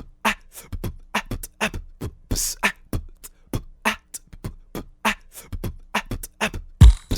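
A beatbox-style rhythm of sharp percussive hits, about three to four a second, with low thumps and a couple of brief hissing cymbal-like sounds.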